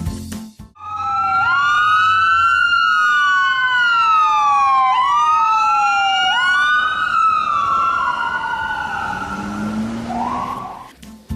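Ambulance siren wailing in two overlapping tones, each sweeping up quickly and falling slowly, then fading out near the end.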